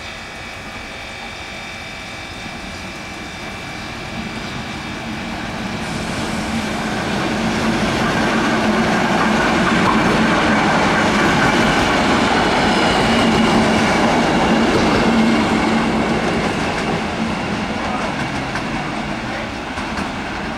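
Three-car Czech electric multiple unit (the 'žabotlam') running through the station, its wheels clattering over the rail joints. The noise builds to a peak about halfway through as the train passes close, then eases off.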